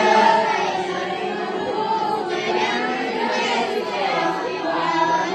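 Many students' voices chanting a Kashmiri prayer together in unison, a steady sung recitation.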